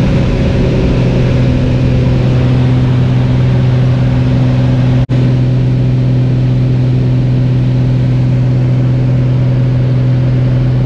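The engine and propeller of a single-engine high-wing light aircraft running steadily in flight, heard from inside the cabin as a loud, even drone. The sound cuts out for an instant about five seconds in.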